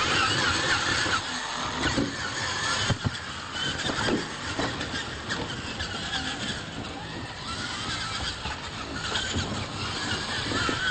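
Radio-controlled monster trucks driving on a dirt track: the whine of their motors and drivetrains rising and falling with the throttle, loudest near the start and again near the end.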